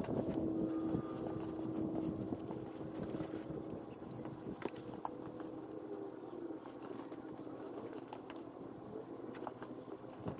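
Old engine oil draining from the sump plug hole into a plastic drain tray, the stream splashing steadily. The sound grows quieter over the first few seconds as the stream thins, near the end of the drain.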